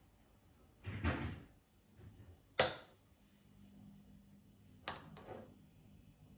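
Three separate household knocks and clicks: a dull knock about a second in, a sharp click a little after two and a half seconds (the loudest), and another knock about five seconds in. A faint low hum comes in partway through.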